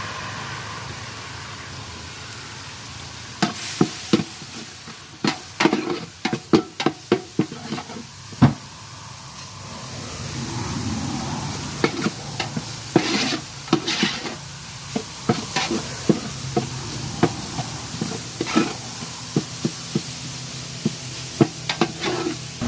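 Food sizzling in a pan while a utensil knocks and scrapes against it in quick runs of sharp clacks, as the food is stirred.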